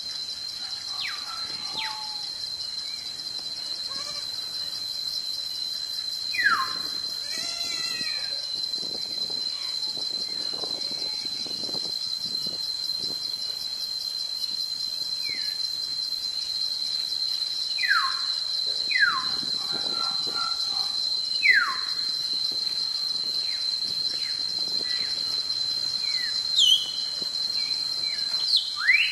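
Steady, high-pitched insect chorus buzzing without a break, with a bird giving short whistles that slide sharply downward, about half a dozen times, spaced several seconds apart.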